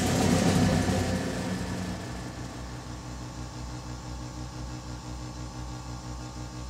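Percussion ensemble playing: a swell that peaks about half a second in and dies away over the next second or so, then a soft, low, even pulsing with a few held tones above it.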